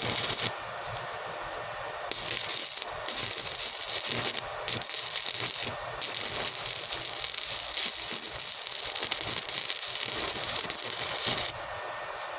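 Electric arc welding crackling and hissing in a few short runs, then one long run of about five seconds that stops shortly before the end.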